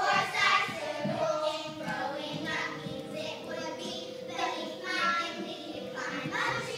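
A group of children singing together, with a long held note through the middle.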